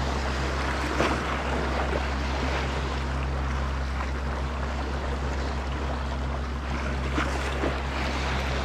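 Sea washing against the shore under a steady low hum, with a few faint clicks about a second in and twice near the end.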